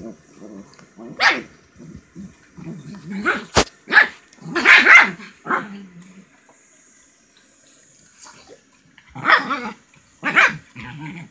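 Two small dogs play-fighting: sharp barks in short bursts with low growling between them, a quieter spell in the middle, then more barking near the end.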